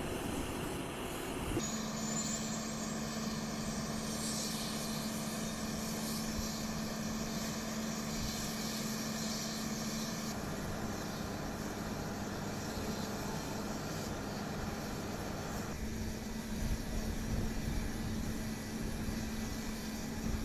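Steady engine noise with a constant low hum. The sound changes abruptly about two seconds in, about halfway through and again about three-quarters through.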